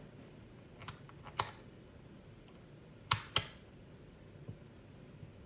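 A few sharp plastic clicks and taps, the two loudest close together about three seconds in, from handling a multimeter and its test probes while it measures a capacitor.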